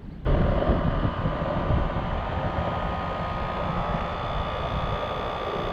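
Air-conditioner condensing unit starting up suddenly and running steadily: the condenser fan's whoosh with a steady whine over it. The unit starts because its open pressure switch has been bypassed.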